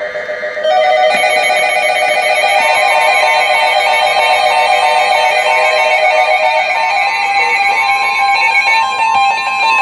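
Electronic alert signal made of several steady synthesized tones sounding together, some warbling rapidly between two pitches. It gets louder and fuller about a second in, and serves as the attention tone ahead of a National Weather Service severe thunderstorm warning.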